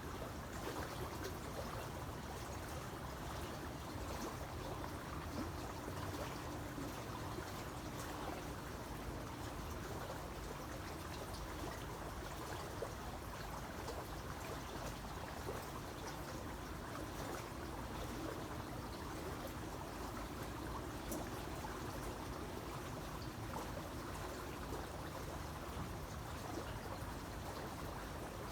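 Creek water flowing and trickling steadily over stones.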